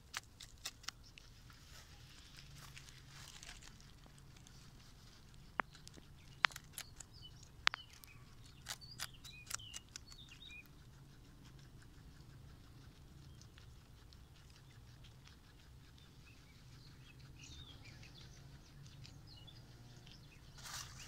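Peruvian guinea pig biting and chewing the crisp stalk of a raw fennel bulb: scattered sharp crunches, most of them bunched in the middle.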